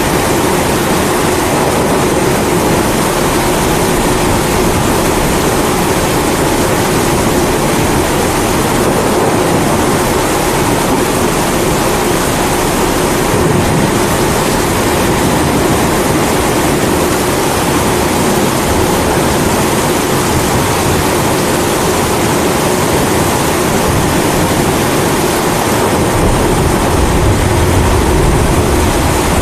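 Kerosene pressure stove (Primus-type) burner running with a steady rushing hiss, mixed with steady rain. A low rumble of thunder swells near the end.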